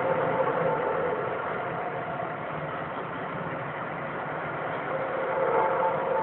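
Steady, unbroken droning hum like a distant bus or truck engine, with faint held tones that swell slightly near the end. The listener who recorded it could not tell whether it came from the sky or the ground.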